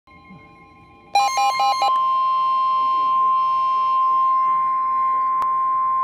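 Midland weather radio sounding a warning alert: a brief rapid two-note warble about a second in, then the long, steady, loud NOAA Weather Radio warning alarm tone, with one click near the end.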